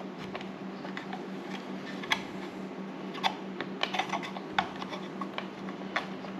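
Small irregular clicks and taps of 3D-printed ASA plastic parts as a model's landing-gear leg is handled and swung at its pivot, with a cluster of clicks in the middle. A steady low hum runs underneath.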